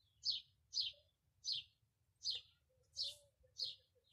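A bird chirping over and over, six short high chirps at an even pace about two thirds of a second apart.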